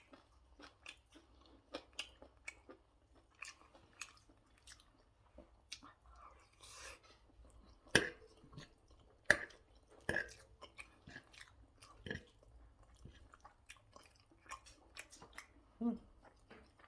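A person chewing and biting food, with wet mouth clicks and smacks throughout and a few louder bites about eight to twelve seconds in.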